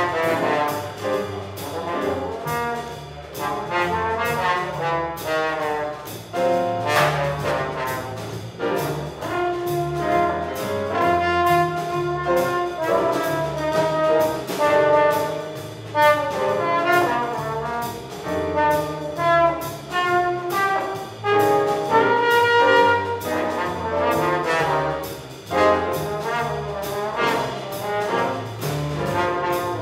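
Small jazz ensemble playing: several horns carry the melody over piano, upright bass and a drum kit. The bass moves in steady stepping notes underneath and cymbals tick throughout.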